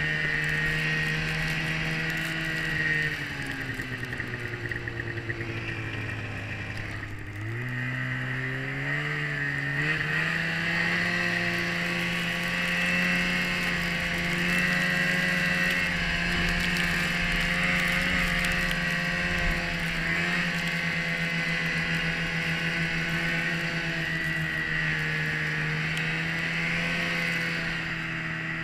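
Polaris 550 snowmobile's fan-cooled two-stroke twin running under way, easing off about three seconds in so its note drops, then picking up again about seven seconds in and holding a steady higher note, with a steady high whine over it.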